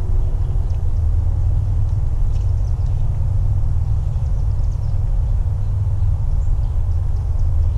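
Steady low rumble of wind buffeting the camera microphone, with a few faint high ticks over it.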